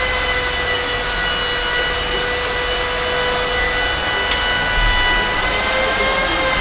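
A machine running steadily: a high whine with overtones that waver slightly in pitch, over a continuous rushing hiss.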